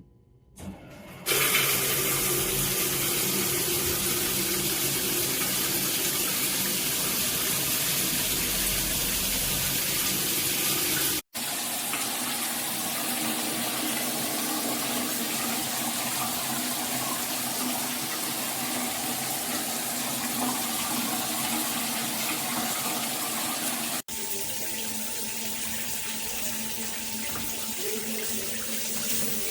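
Water spraying from a shower head as a steady hiss, starting about a second in and breaking off for an instant twice.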